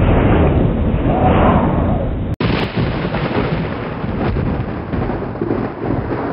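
A loud, deep thunder-like rumble. It breaks off for an instant about two and a half seconds in, then carries on.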